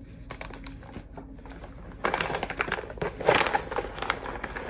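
Computer keyboard typing: a few faint clicks, then rapid, irregular key clicks from about two seconds in.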